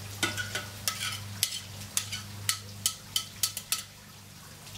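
Metal tongs tapping and scraping against a plate, knocking shredded cheese off into a glass bowl: a run of sharp clicks about three or four a second that stops near the end, over a steady low hum.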